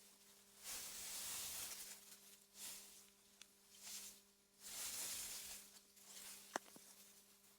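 Wind gusting through meadow grass: a soft hiss that swells and fades four times, over a faint steady hum. A single sharp click near the end.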